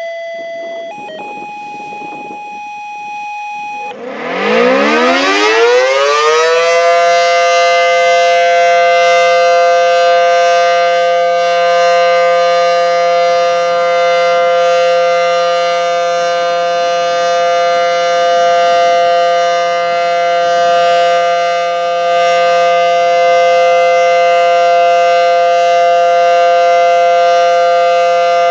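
Federal Signal SD10 dual-tone electromechanical warning siren winding up about four seconds in, its pitch sweeping up over two seconds. It then holds a steady two-note chord on its monthly test. Before it starts, a few quieter steady tones are heard.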